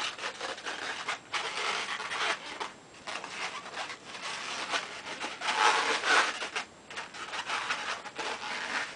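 Inflated latex modelling balloons (Qualatex 260Q) rubbing against each other and against the hands in uneven rasps as a twisted balloon figure is pressed into shape, loudest about six seconds in.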